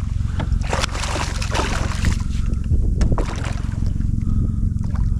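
Steady wind rumble on the microphone, over water sloshing around a kayak, with several sharp knocks and splashes about a second apart in the first three seconds.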